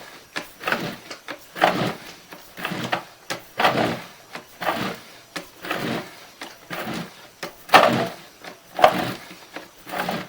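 Sewer inspection camera's push cable being fed down a drain line by hand, sliding and rasping in repeated strokes about once a second, with a few sharp clicks.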